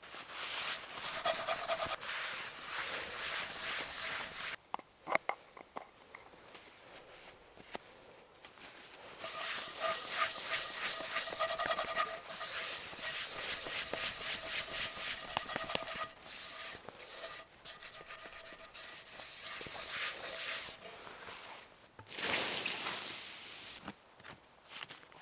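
Paper towel rubbed around the inside of a cast iron skillet, wiping out leftover grease: a squeaky scrubbing in two long spells. A short, loud hiss follows near the end.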